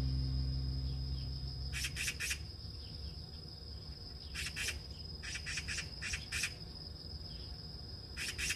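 Insects calling: a steady high-pitched trill, with short groups of three or four loud chirps coming every few seconds. Background music fades out in the first second.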